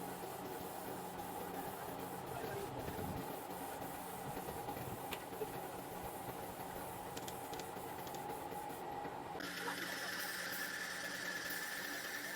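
Air-conditioner compressor running with a steady mechanical hum. About nine seconds in, a higher steady tone with a hiss joins it.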